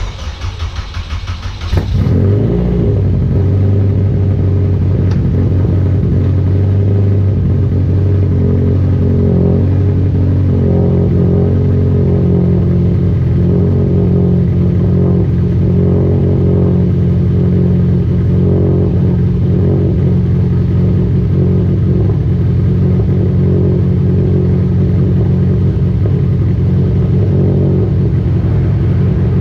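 K-swapped Honda Civic engine cranked by its starter, with rapid pulses for about two seconds, then catching and settling into a loud, steady idle.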